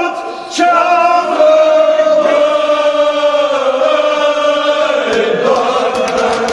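A group of men chanting a Kashmiri marsiya, a mourning elegy, together, holding long drawn-out notes. The pitch steps down about five seconds in.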